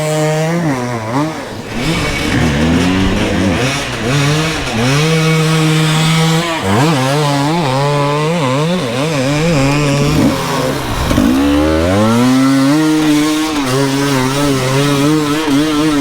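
Dirt bike engine being ridden hard on a muddy trail, the revs rising and falling every second or so, held steady for a couple of seconds about midway and again near the end, with two brief drops in revs about a second and a half in and again about eleven seconds in.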